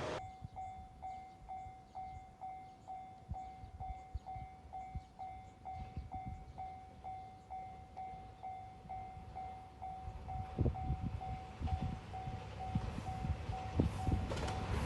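Japanese railway level-crossing warning bell ringing steadily, about two dings a second, with scattered low thumps underneath.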